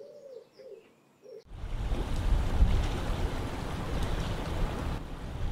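Pigeons cooing faintly. About a second and a half in, this cuts suddenly to a loud, steady rush of wind buffeting the microphone by open water.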